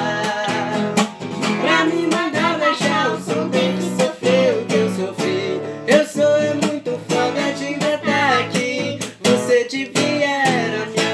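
Acoustic guitar strummed in a steady rhythm while a teenager and a young boy sing a Portuguese-language song together.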